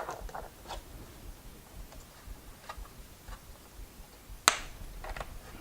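Small clicks of wires and connectors being handled inside an electric unicycle, with one sharp snap about four and a half seconds in as the battery connector is plugged into the control board.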